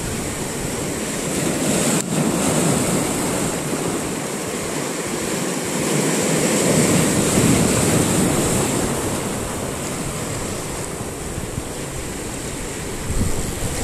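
Rough sea surf washing and breaking over rocks, swelling and easing, with wind on the microphone.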